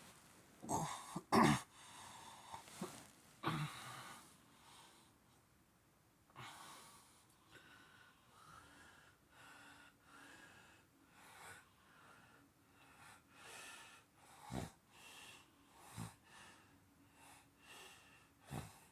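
A sleeper snoring, with irregular noisy breaths. The loudest breaths come in the first four seconds, and a few short sharp ones come later.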